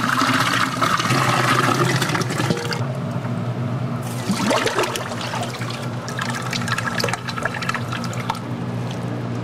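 Running water pouring and splashing in two spells, with a pause of about a second between them, over a steady low hum.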